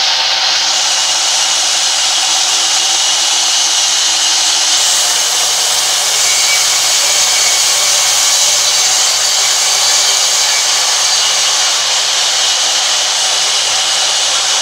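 Sawmill band saw ripping lengthwise through a large log: a loud, steady, even noise of the blade in the wood.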